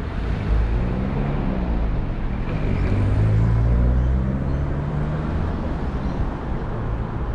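A car passing close by, its engine note rising and then falling away, loudest about three to four seconds in, over a low steady traffic rumble.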